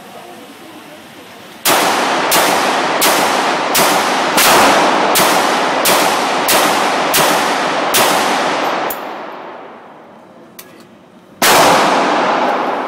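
Gunshots at a shooting range: about ten shots in quick succession, roughly one and a half a second, then a single shot near the end. Each crack is followed by a long echoing decay.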